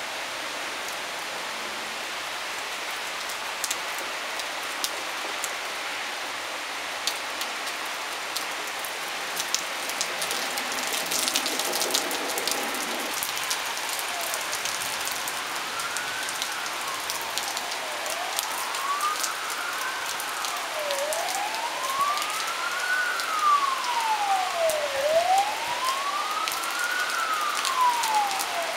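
Heavy downpour hissing steadily, with close raindrops ticking. About halfway through, an emergency vehicle's siren starts wailing, rising and falling slowly at about one full cycle every four seconds.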